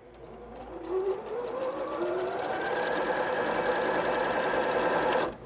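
Janome 3160 computerized sewing machine stitching a seam. It speeds up with a rising whine over the first couple of seconds, runs steadily, then stops abruptly just before the end.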